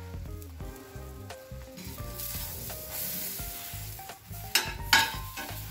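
Butter sizzling on a cast-iron tawa as pav buns toast in it and are turned with a metal spatula. Two loud, sharp spatula scrapes on the pan come close together a little after four and a half seconds in.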